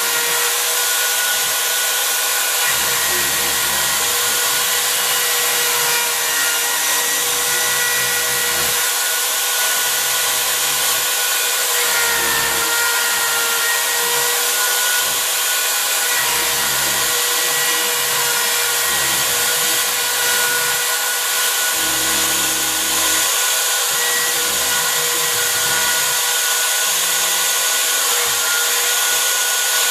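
Wood router running as the spindle of a home-built CNC machine, with a steady high whine, while its bit carves into the board. Low rumbles of the cut come and go as the bit moves through the material.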